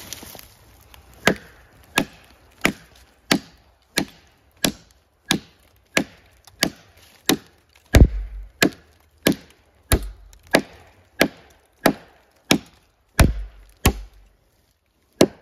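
Worktuff Gear Grizzly, a quarter-inch-thick K329 steel chopping knife, chopping into a log: about twenty sharp strikes at an even pace of roughly one and a half a second, a few landing with a heavier thud.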